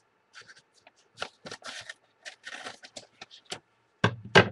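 Paper and plastic rustling and scraping in irregular bursts as mailed trade packaging is opened and a trading card taken out, with two louder knocks near the end.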